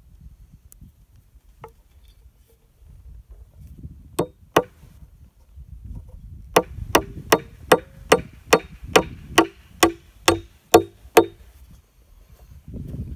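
Claw hammer driving nails into the corner of a 2x6 lumber raised-bed frame: two blows about four seconds in, then a steady run of about a dozen blows at roughly two a second.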